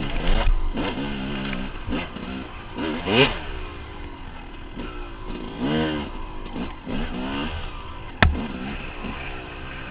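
Dirt bike engine revving up and down in repeated bursts as the rider works the throttle on rough single-track. A single sharp knock sounds near the end.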